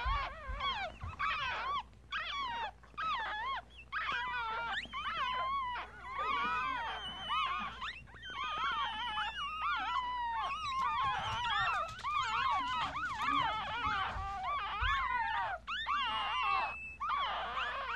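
Newborn Yorkshire terrier puppies, a day old, squeaking and whimpering without pause, several high-pitched wavering cries overlapping.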